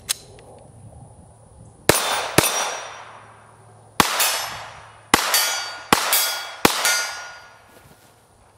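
Seven 9mm pistol shots from a Glock in a CAA MCK chassis, spaced from about half a second to two seconds apart, each followed by the ringing of steel targets. The last shot comes about two-thirds of the way through.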